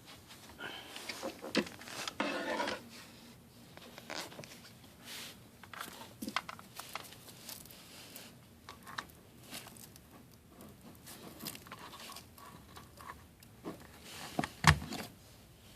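Handling noises: scattered rustling and small clicks, with one sharp knock about a second before the end.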